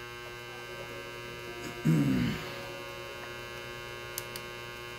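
Steady electrical mains hum, with a short wordless vocal sound about two seconds in and two small clicks near the end.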